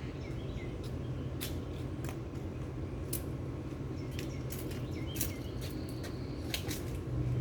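Outdoor background: a steady low hum with faint bird chirps and a few scattered light clicks.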